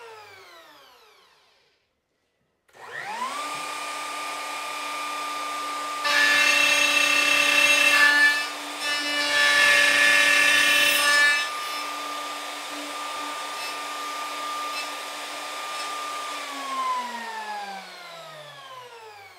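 Plunge router with a straight bit. It winds down at the start, starts up again about three seconds in and rises to a steady whine. From about six seconds in it is much louder for some five seconds, with a short dip in the middle, as it cuts through-dovetail pins in a board on a dovetail jig. It then runs free and winds down near the end.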